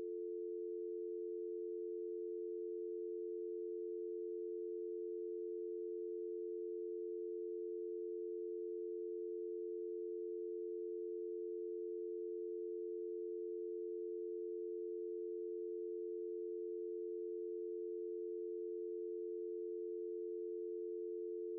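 Telephone dial tone: two steady tones sounding together, unbroken and even.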